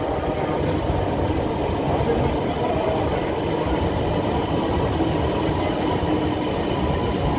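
Orange Line electric metro train pulling into an elevated station and running past the platform: a steady rumble of wheels on the rails with a faint high whine.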